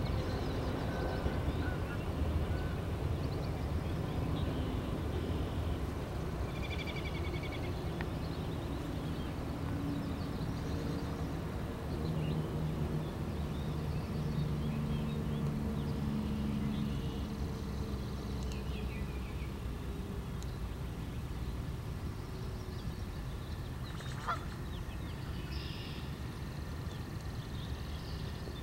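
Waterfowl honking now and then over a steady low rumble, with a few faint high chirps.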